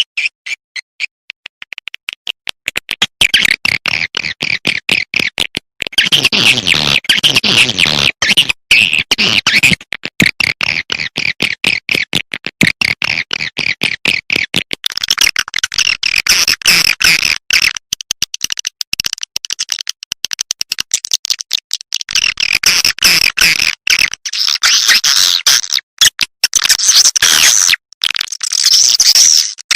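Swiftlet lure-call recording: rapid, dense twittering chirps and clicks of swiftlets in overlapping bursts with brief gaps. It is the calling sound played at swiftlet houses to attract the birds to nest.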